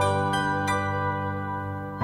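Soft instrumental music: sustained chords with a couple of plucked notes about a third and two-thirds of a second in, fading a little toward the end.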